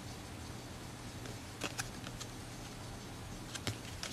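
Trading cards being handled and flipped through, giving a few short light clicks and taps, two about a third of the way in and two more near the end, over a low steady hum.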